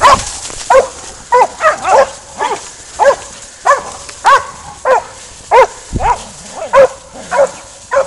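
Hunting dogs barking repeatedly at a wild boar, about one bark every half second or so with no let-up: the steady barking of dogs that have a hog stopped. A low thud about six seconds in.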